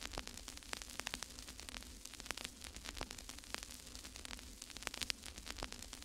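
Crackling static: a steady hiss with a faint low hum, broken by many irregular sharp clicks and pops.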